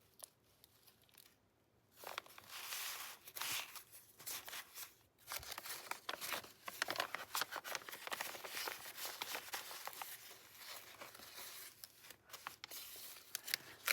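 Paper pages of a handmade junk journal rustling and crinkling as they are handled and turned, a busy run of small crackles and ticks that starts about two seconds in.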